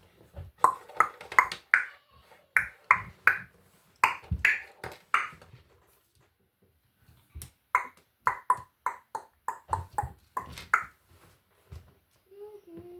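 A rapid series of sharp clicks and clacks in quick clusters, pausing for about a second and a half midway, with faint humming starting near the end.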